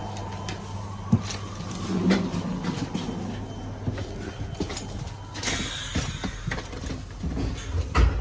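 Footsteps and irregular knocks and clunks of someone walking through the gangway between two railway coaches, over its steel chequer-plate floor and through a connecting door. A steady low hum runs underneath.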